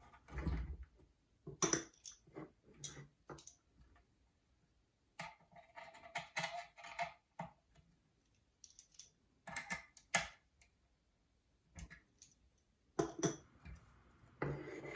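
Light clicks and metallic clinks of small hardware being handled, in short clusters with quiet gaps: a screw and hex nut being fitted to a starter box adapter plate.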